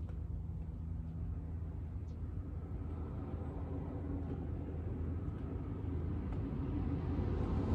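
Gas lawn mower engine running steadily, slowly growing louder as it comes closer.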